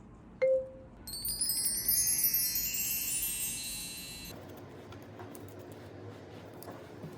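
A single short tone, then a shimmering run of many high wind-chime tones starting about a second in and lasting about three seconds before stopping.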